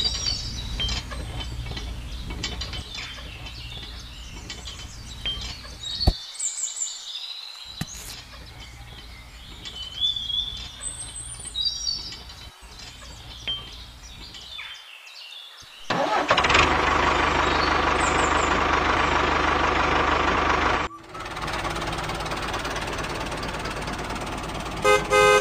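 Light clicks of plastic parts as a toy cultivator is clipped onto a toy tractor's hitch, over a low hum with bird chirps. About 16 seconds in a loud, steady engine noise starts, runs for about five seconds and cuts off suddenly, followed by a quieter engine hum and a few quick beeps at the very end.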